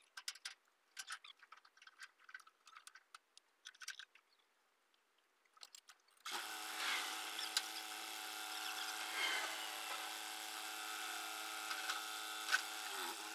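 Faint metal clinks and scrapes from work on a tractor's trailer hitch as the trailer is uncoupled. From about six seconds in, a steady mechanical whine of several held tones takes over, dipping slightly in pitch just before it stops near the end.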